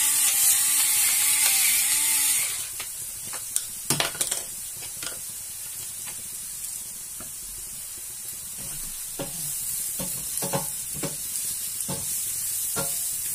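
Pepper mill grinding with a steady hum for about two and a half seconds, then stopping abruptly. After that, leeks sizzle softly in oil in a stainless steel pan while a wooden spoon knocks and scrapes against the pan in scattered clicks.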